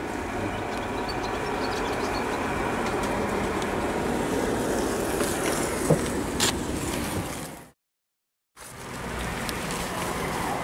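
Steady road traffic noise, with a couple of sharp clicks about six seconds in and a break of complete silence for about a second near eight seconds in.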